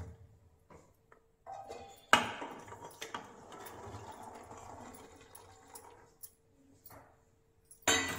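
Chopped vegetables (beans, carrot, cauliflower, peas, beetroot) being tipped from a steel plate into a pressure cooker. A sharp clink about two seconds in is followed by a few seconds of clattering and sliding as the pieces fall in.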